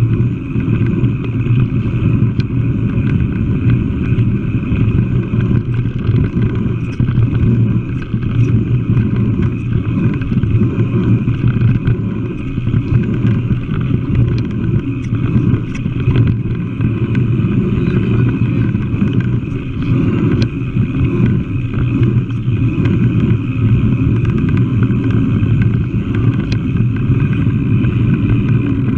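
Steady wind rush and low rumble on the microphone of a mountain bike riding a dirt singletrack, with faint scattered ticks.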